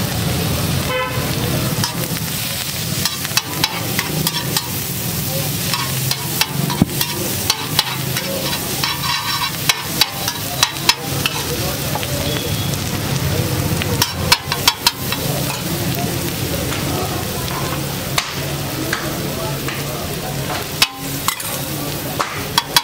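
Egg, onion and chilli frying and sizzling in oil on a large flat griddle (tawa), with the cook's metal spatula repeatedly clacking and scraping on the griddle as he chops and spreads the egg. A low steady hum runs underneath.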